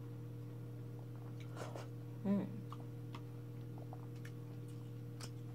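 Quiet eating sounds: a few small mouth and spoon clicks while sipping mung bean soup, with a brief voiced 'mm' about two seconds in. A steady low electrical hum runs underneath.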